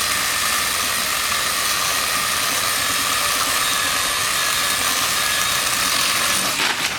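Milwaukee cordless pruning chainsaw running steadily at full speed while cutting a branch, a constant high whine over chain rattle, stopping just before the end.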